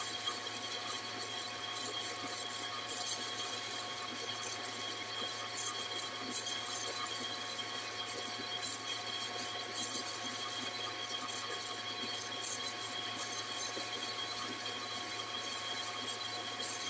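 50 W fiber laser cutting a gun slide: a steady hiss with fine crackle as the beam ablates the metal, over the machine's steady hum and whine.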